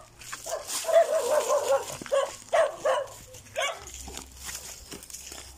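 A dog barking repeatedly, with a longer wavering whine about a second in.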